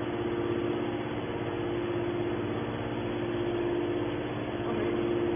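Hydraulic power unit of a scrap metal baler running with a steady hum, one strong tone with a few overtones above it, while the hydraulic cylinder swings the baler's press lid closed.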